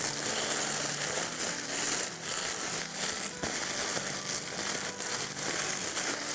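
Cornflakes being crushed by hand inside a clear plastic zip-top bag: the plastic crinkles while the flakes crackle as they break, without pause.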